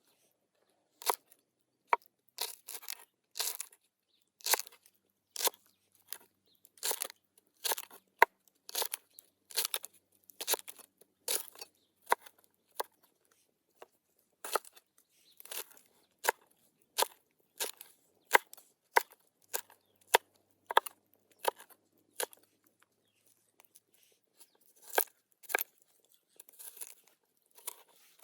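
A run of short, crisp cutting or crunching strokes, about one to two a second, with two brief pauses, as food is cut by hand during cooking prep.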